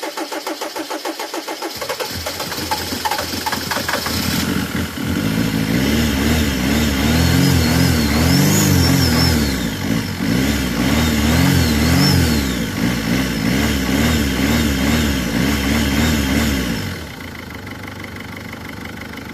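Mercedes-Benz Vito diesel engine cranking on the starter, catching about two seconds in, then revved up and down repeatedly before settling to a steady idle near the end. It fires on a cup of gasoline poured into the turbo intake, a start forced past a hard-starting fault that the owner puts down to bad glow plugs.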